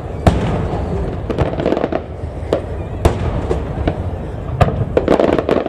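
Aerial firework shells bursting in an uneven series of sharp bangs over a constant low rumble, the loudest bang just after the start. About five seconds in comes a quick run of pops.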